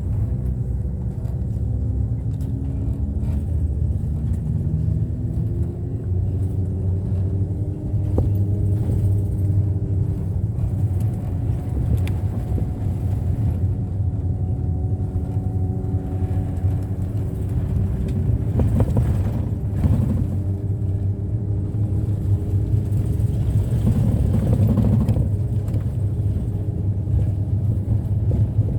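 Bus engine and road rumble heard from inside the cabin: a steady low drone with the engine note rising and falling several times, and a few clicks and rattles.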